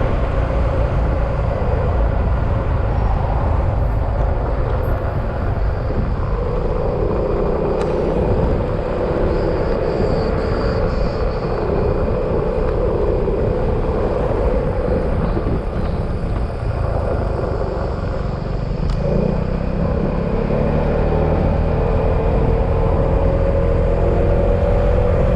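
Yamaha XMAX scooter riding along the road: a steady engine note under heavy wind and road rumble. The engine tone climbs slowly through the last few seconds as the scooter speeds up.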